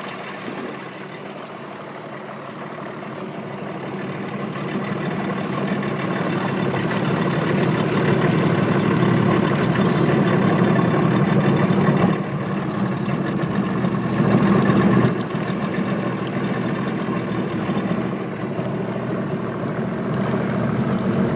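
A motor running steadily as the vehicle travels. It grows louder over the first several seconds, drops slightly about twelve seconds in, swells briefly a few seconds later, then settles.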